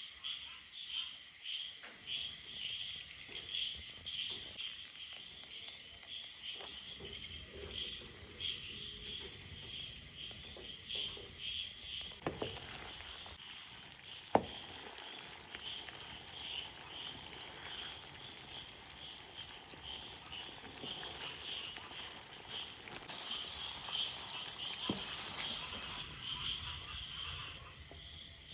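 Insects chirping in a steady, evenly pulsing chorus. There is a single sharp click about fourteen seconds in, and a fainter one near the end.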